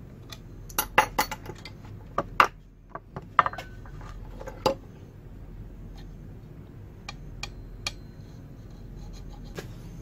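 Sharp metallic clinks and knocks in quick clusters during the first five seconds, with a few fainter ones later: an adjustable wrench and the steel axe-head fittings handled and set down on a wooden board.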